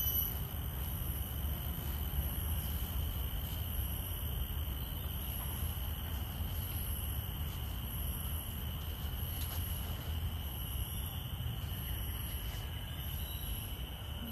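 Insects droning steadily in the surrounding trees, a continuous high-pitched whine with a fainter, higher whine above it, over a steady low rumble.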